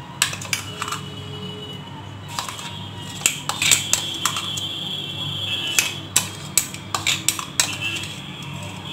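A spoon clinking and tapping against glass as green chilli-garlic-ginger paste is scooped onto raw chicken pieces in a glass bowl: a string of sharp, irregular clicks, thickest in the second half.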